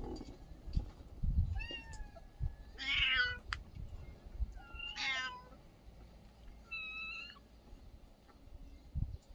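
Kittens meowing: four short, high calls a second or two apart, some sliding in pitch, with a few soft low knocks in the first second and a half.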